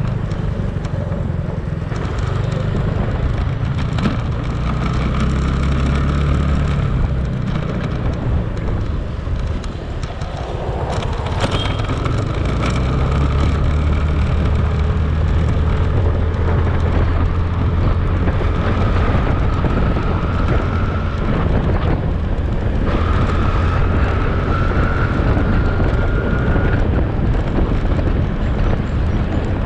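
Motorcycle engine running under way, with wind and road noise on the microphone. It eases off briefly about ten seconds in, then picks up again, with a faint whine above the engine's rumble.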